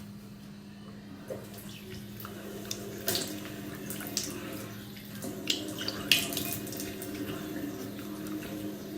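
Tap water running into a sink, with splashing as water is scooped and splashed on the face during washing. A steady low hum sits underneath.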